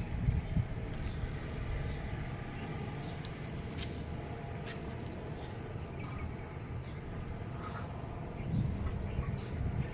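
A small bird chirping repeatedly, short high notes that dip and rise about once a second, over a steady low rumble.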